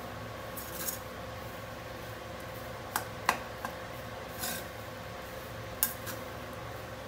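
Metal spatula scraping and tapping against a steel kadai while stirring puffed rice, with sharp clinks about three seconds in and again near six seconds. A steady hum runs underneath.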